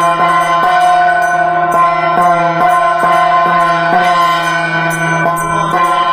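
Hindu devotional music with a steady drone and held tones over a regular beat about twice a second.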